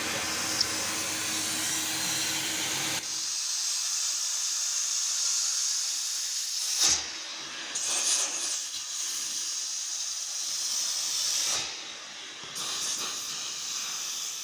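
Upholstery cleaning machine at work. A motor drone with a low hum runs for about three seconds and cuts out, leaving a steady high hissing spray that briefly dips twice.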